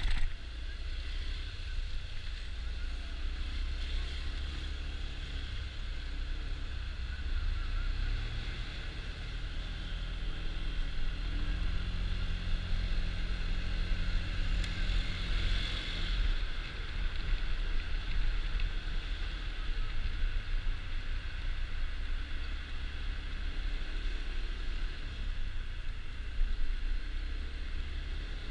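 Honda Dio scooter's engine running in slow traffic, with a steady low rumble on the microphone.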